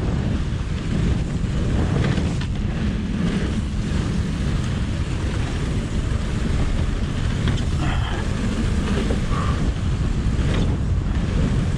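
Strong wind buffeting the microphone in a steady, loud rumble, over the sound of mountain bike tyres rolling along a wooden boardwalk.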